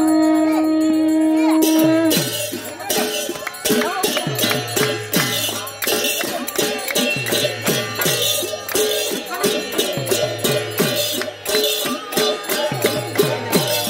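A conch shell blown in one long steady note that stops about two seconds in. Then hand drums and small cymbals strike up a lively devotional rhythm, the drum's low strokes sliding down in pitch, with hands clapping along.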